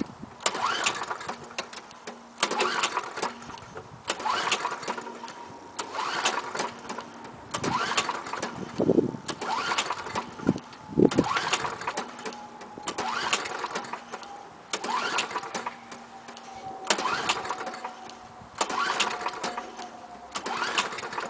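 Briggs & Stratton Quantum mower engine being pull-started cold, the recoil cord yanked about a dozen times roughly every two seconds without the engine catching and running, with a couple of heavier pops near the middle.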